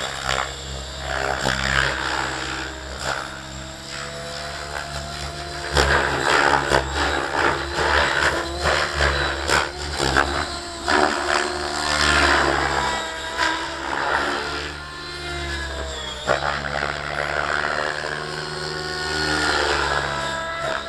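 Align T-Rex 700 radio-controlled helicopter flying, its rotor and drivetrain whine rising and falling in pitch again and again as it manoeuvres.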